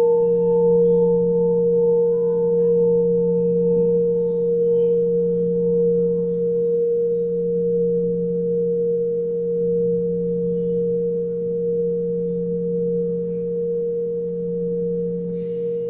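A tuned metal pipe ringing on after being struck: one long, steady tone whose higher overtone fades away over the first several seconds, with a lower hum beneath.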